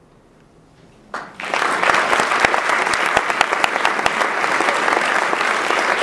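Audience applauding: after about a second of quiet, scattered first claps break out and swell within half a second into steady, dense clapping.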